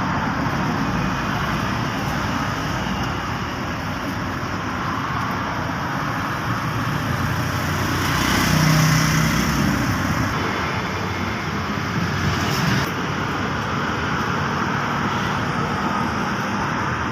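Steady road traffic noise from passing cars and motorbikes, with one vehicle passing louder about halfway through.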